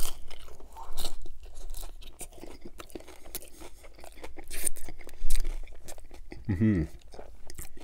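Close-miked crunching and chewing of a hard-shell taco topped with crispy fried chicken skin: a loud crunchy bite at the start, then crackling chews all through. A short voiced hum comes from the eater near the end.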